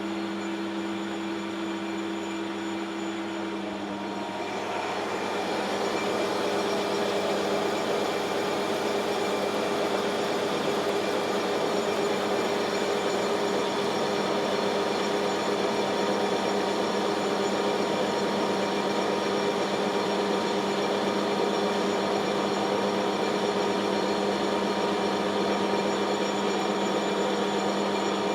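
Metal lathe running steadily while cutting a 4140 steel shaft: the drive hums on steady tones under a hiss of cutting noise, which grows louder and changes pitch about four seconds in, as the cut takes hold.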